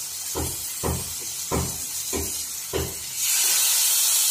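Marinated chicken drumstick sizzling in hot oil in an aluminium frying pan: a loud, steady hiss that starts suddenly about three seconds in as the raw piece goes into the pan. Before it come several soft low thumps.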